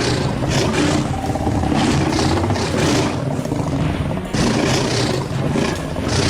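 Stock big-cat roar and growl sound effects, rough and continuous, with an abrupt cut to a new roar a little over four seconds in.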